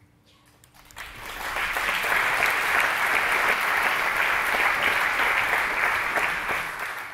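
Audience applauding: the clapping starts about a second in, swells quickly to a steady level, and tapers off near the end.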